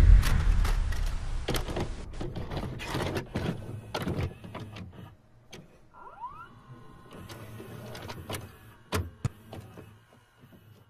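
A deep boom fading out over the first two seconds, then a video-cassette player sound effect: a run of mechanical clicks and clunks with a motor whirring, a short rising whine about six seconds in, and a few sharp clicks near the end.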